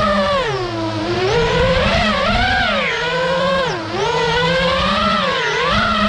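Brushless motors of an iFlight Nazgul5 five-inch FPV quadcopter whining in freestyle flight, the pitch swooping up and down with the throttle. The pitch drops sharply about a second in and again near four seconds, where the throttle is chopped, then climbs back.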